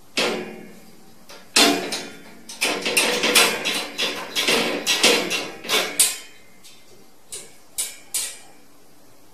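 Metal slide-bolt latch and wire cage door rattling and clanking as a cat paws at the bolt. There is one clank at the start, a quick run of clanks from about one and a half to six seconds in, then three single clanks.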